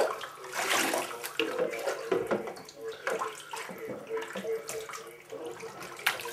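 Water splashing and sloshing in a bathtub as a soaked tortoiseshell cat is scrubbed, with the cat's drawn-out, wavering yowls through most of it.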